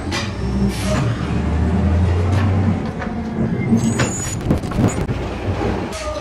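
Rooftop job-site noise: a low steady motor drone that stops about three seconds in, then scattered knocks and clatter of wood and tools, with a brief high squeal near the middle.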